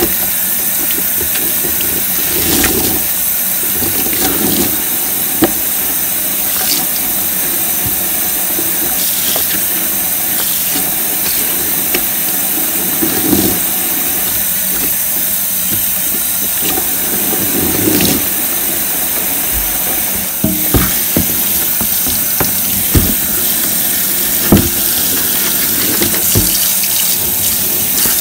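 Tap water running steadily into a sink, splashing over a soapy sponge as it is squeezed and rinsed. There are a few short, sharp splashes or knocks, most of them in the second half.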